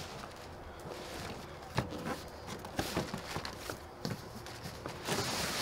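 Cardboard shipping box being opened by hand: flaps pulled back and folded, with scattered light knocks and scrapes, one sharper knock about two seconds in, and a denser rustling scrape of cardboard near the end.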